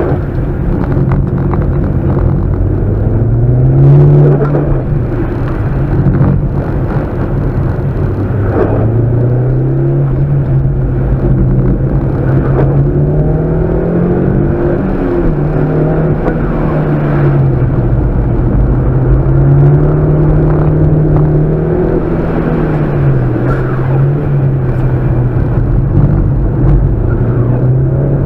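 Mitsubishi Lancer Evolution's turbocharged four-cylinder engine heard from inside the cabin while driving. Its pitch climbs and drops again and again as the throttle and gears change.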